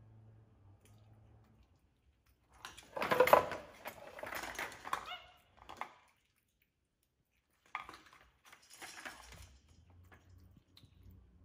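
Plastic toys rattling and clattering as a capuchin monkey rummages through a pile of them, in two bursts, the first and louder one about three seconds in and a shorter one near eight seconds.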